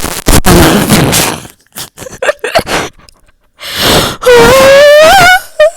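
Loud, distorted bursts of harsh noise, clipping, broken by short gaps; about four seconds in, a wavering high-pitched cry or squeal rises in pitch for over a second.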